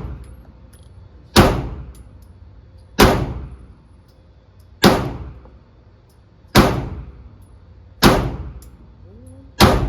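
Six single shots from a 9mm Glock 19 pistol in slow aimed fire, about one every one and a half to two seconds, each sharp report followed by a short echoing decay.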